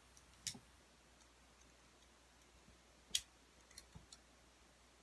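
A few sharp clicks and taps of small plastic parts of a wireless mouse being handled: one about half a second in, the loudest just after three seconds, and a few light ticks near the end, over near silence.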